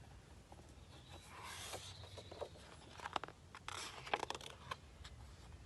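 Faint paper rustling with a few soft clicks: the pages of a book being handled and turned. A short swish comes about a second and a half in, and scattered crinkles and taps follow a couple of seconds later.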